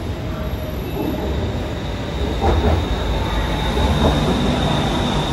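BTS Skytrain train pulling into an elevated station: a steady rumble of wheels on the rails with a high-pitched whine, growing louder as it comes in.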